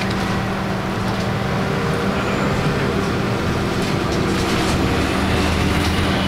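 Bus engine and road noise heard from inside the passenger cabin: a steady drone with a constant low hum, a deeper hum growing stronger in the last few seconds as the bus moves along.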